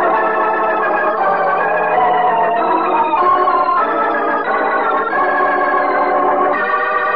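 Organ music bridge marking a scene change in a radio drama: a run of held chords, moving to a new chord every second or so.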